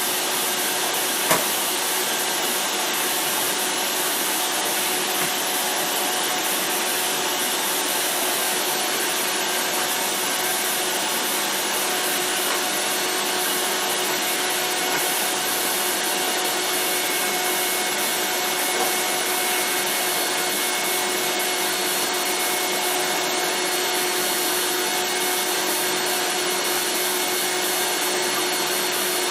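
Eureka The Boss Mighty Mite II canister vacuum (model 3621) with a 7.0 amp motor, running steadily at full speed. It gives a constant whine. About a second in there is a single sharp click.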